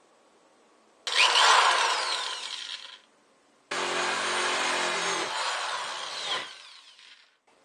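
A power tool cutting, in two runs: one of about two seconds, then after a short pause one of about three seconds that fades out near the end.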